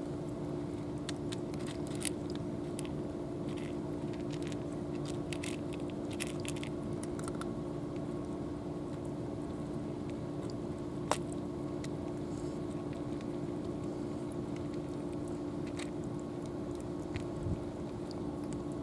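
A cat chewing, a run of small irregular crunches that is thickest in the first several seconds, over a steady low hum.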